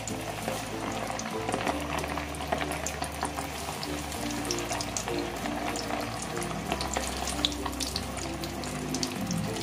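Flour-and-egg-coated chicken wings deep-frying in hot oil in a wok: a steady sizzle full of small crackling pops. Background music plays underneath.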